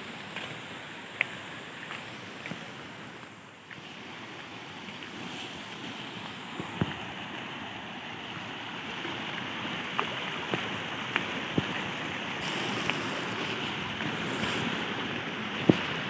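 Shallow rocky river rushing steadily over stones, a little louder from about six seconds in, with a few scattered sharp clicks.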